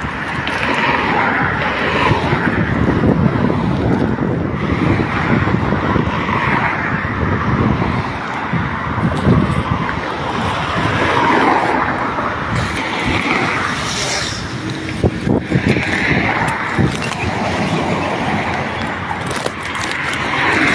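Continuous noisy rush of street traffic mixed with wind on the phone's microphone, steady in level.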